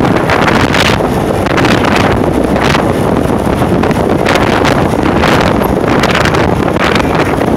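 Wind buffeting the microphone of a camera on a moving motorcycle: a loud, steady rush with sharper gusts about once a second, over the running noise of the ride.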